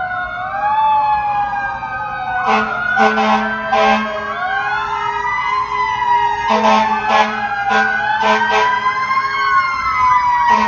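Several emergency-vehicle sirens from approaching fire engines and police cars wail over one another, one switching to a fast yelp near the end. Two series of short horn blasts cut through, the first about two and a half seconds in and the second about six and a half seconds in.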